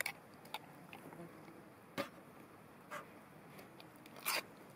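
Metal spoon clinking and scraping against a small stainless steel pot as thick oatmeal is stirred: a handful of separate clinks, with a slightly longer scrape near the end.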